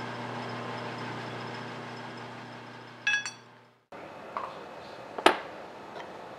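A steady low hum for about three seconds, then a short, ringing metallic clink as the chuck key and steel part are handled at the lathe chuck. After a break, a few light knocks and one sharp knock as small steel parts are set down on a wooden workbench.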